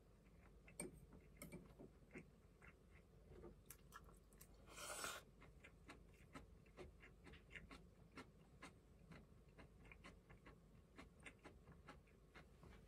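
Faint sounds of someone eating with chopsticks: small scattered clicks and taps against the bowls and quiet chewing, with one short breathy rush of noise about five seconds in.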